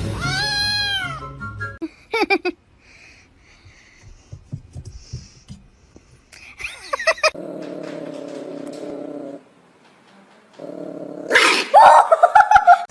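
A cat meowing several times: a drawn-out meow that rises and falls in the first second, short meows around two and seven seconds in, and a loud yowl near the end.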